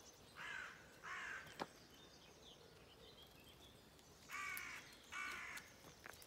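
A crow cawing: two harsh caws in quick succession, then another pair about four seconds in.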